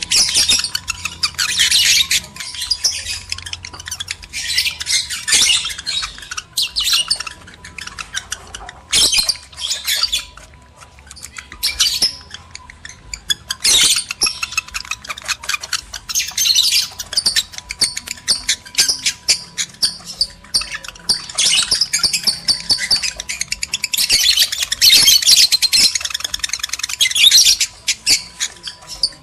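Lovebirds chattering and squawking in fast, high-pitched runs that come in bursts with short lulls: the excited calling of male and female lovebirds in breeding condition.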